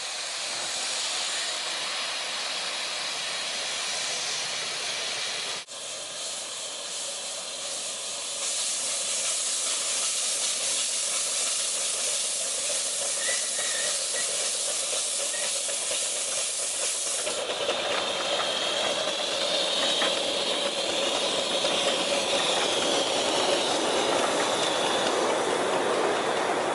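A 7¼ inch gauge miniature train hissing steadily, with a louder high hiss from about a third of the way in until about two-thirds through, and then a fuller running sound as the train moves along the track.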